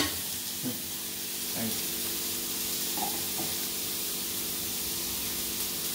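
Beef steak searing in a frying pan, sizzling steadily, with a steady low hum underneath.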